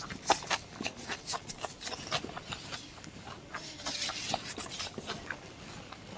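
Close-miked chewing of luchi and chicken curry: many small wet mouth clicks and smacks, with a short hiss about four seconds in.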